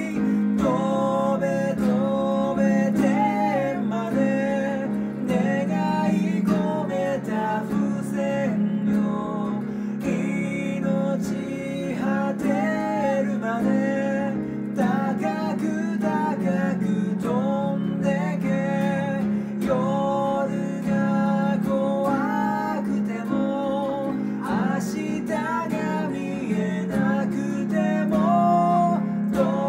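A man singing a Japanese song over a strummed acoustic guitar.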